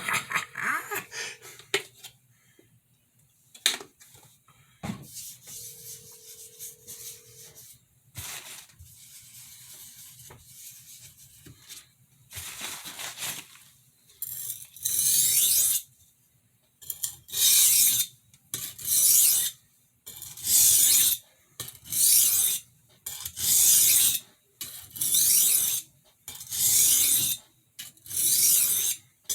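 A kitchen utility knife's blade drawn back and forth across a finishing whetstone with light pressure. After some scattered clicks and handling noises, steady strokes set in about halfway through, roughly one every second and a half, each a scraping hiss.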